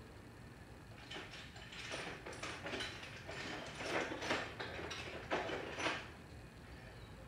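Hand tool working screws loose from a car's front bumper cover, in irregular runs of ratcheting clicks and scrapes that start about a second in, are loudest around four and six seconds in, and die down after that.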